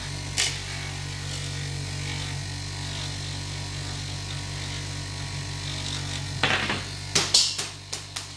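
Small bench-grinder motor running steadily with a 1000-grit felt polishing pad, a stone held against the pad as it turns. A few sharp clicks and a short clatter come about six and a half to seven and a half seconds in.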